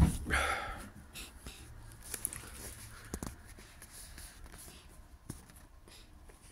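A sudden loud thump with a short rustle right at the start, then sparse light taps and scuffs as kittens scamper across a wooden floor among cardboard boxes.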